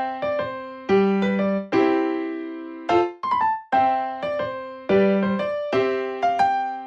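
Background music: a light electric-piano melody of struck notes, each fading away, in a phrase that repeats about every two seconds.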